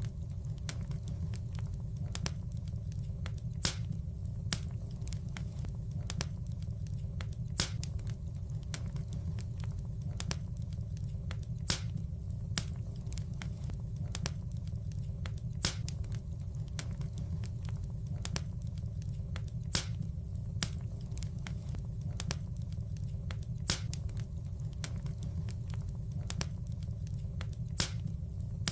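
Wood fire crackling in a fireplace: sharp pops and snaps over a steady low rumble. The same loud pops recur every four seconds, a short repeating loop.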